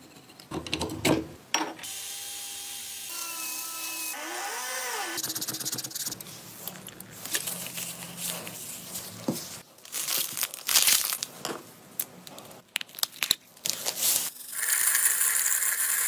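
Close-up workshop handling sounds from several restoration steps: cutting and scraping, sharp clicks and taps, and a brief gliding whine. A loud steady hiss sets in near the end.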